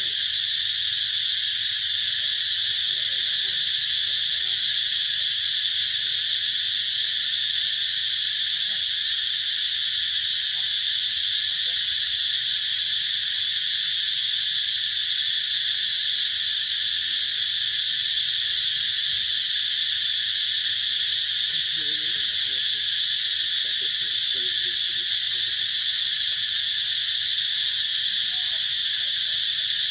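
Dense, steady chorus of insects, a continuous high-pitched shrill that never lets up.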